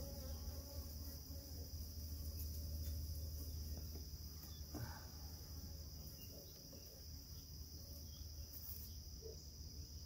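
Honeybees buzzing around an open hive during a frame inspection. The colony is defensive, which the beekeeper calls feisty. A steady high insect trill runs underneath, and there is a faint wooden knock about halfway through.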